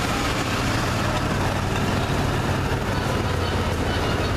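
Small engine of a railroad maintenance-of-way motorcar (speeder) running steadily as it pulls away along the track, a low even engine hum.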